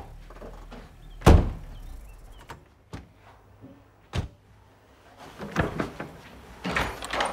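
A door thuds shut about a second in, followed by a few light knocks, a second sharp knock about three seconds later, and shuffling movement near the end.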